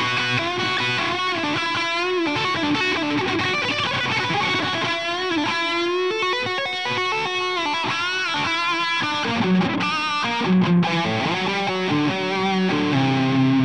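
Jackson electric guitar played through an amplifier cabinet, fast lead runs with string bends and vibrato, settling into sustained notes near the end. Recorded from about three to four feet from the cabinet: clean, without the mic distorting, but taking in the room as well as the guitar.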